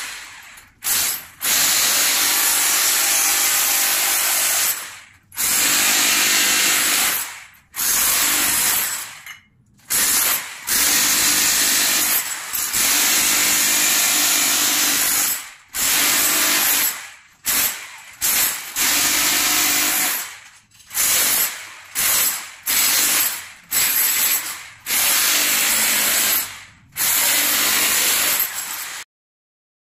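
Corded electric rotary hammer with a chisel bit chiselling into ceramic floor tiles and mortar, run in repeated bursts of one to four seconds with short stops between them. It cuts off just before the end.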